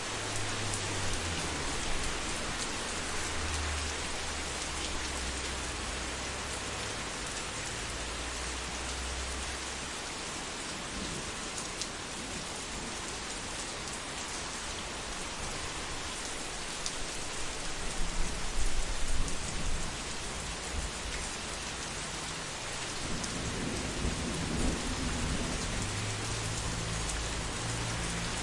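Steady heavy rain with rolling thunder: low rumbles come and go, and a louder crackling thunderclap peaks a little past the middle.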